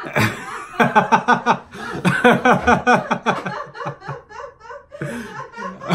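Hearty laughter: a quick run of ha-ha pulses, about four a second, that fades into quieter chuckles after about three and a half seconds.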